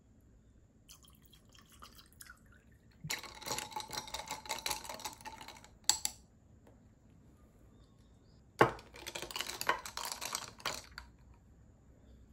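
Bottled water poured over ice into tall drinking glasses holding tea bags, in two pours of a few seconds each, with sharp clinks of glass and ice.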